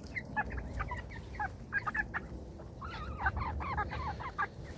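A flock of small white poultry calling with many short, quick clucks and chirps, thickest in runs partway through, over a low rumble.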